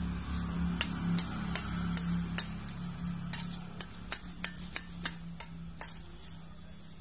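Small hand hoe tapping and scraping at sand on a plastic sheet: a run of light, sharp ticks about three a second, growing fainter near the end, over a steady low hum.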